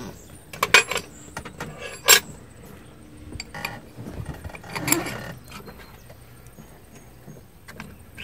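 Wrench and hand tools clinking against the steel studs and nuts of a John Deere tractor's SCV valve stack: a few sharp metallic clinks, the loudest about two seconds in, between quieter handling and rustling sounds.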